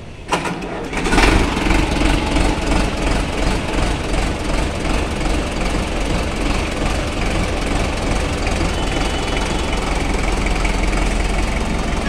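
Sonalika DI-750 III RX tractor's diesel engine starting: a brief crank, catching about a second in, then running steadily.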